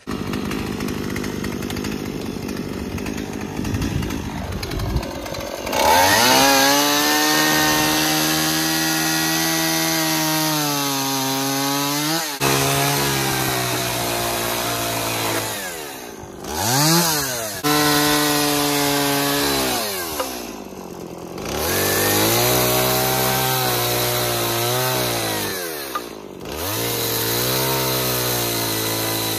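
Stihl two-stroke chainsaw running, low and rough at first, then at full throttle from about six seconds in as it cuts wooden boards. The engine drops back and revs up again about four times between cuts.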